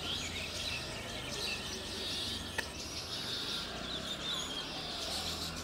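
Many small birds chirping and twittering over a steady low background hum, with a single sharp click about two and a half seconds in.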